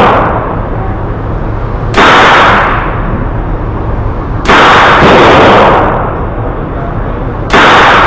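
Semi-automatic shots from a GSG-16 .22 LR rifle fired one at a time: one about two seconds in, a pair half a second apart midway, and one near the end. Each shot is sharp, with a long ringing echo in the indoor range.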